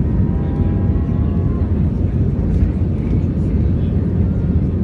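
Cabin noise of an Airbus A320 climbing out just after takeoff: a steady, loud low rumble of the engines at climb power and the airflow over the fuselage, with a faint high whine that fades out under two seconds in.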